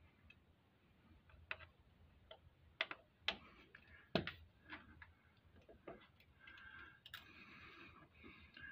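Faint, scattered light clicks and taps of small tools and parts being handled in a motorcycle V-twin's open cam and tappet area, about one or two a second. A faint steady hiss comes in about two-thirds of the way through.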